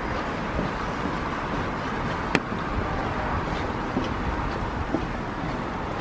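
Footsteps of someone walking on a wet boardwalk, over a steady rushing background noise, with one sharp click a little over two seconds in.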